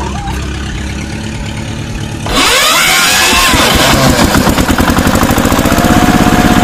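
Toy tractor's engine sound effect: a steady low chugging idle, then a bit over two seconds in it jumps to a much louder, faster engine sound whose rhythm keeps speeding up, like the engine revving up.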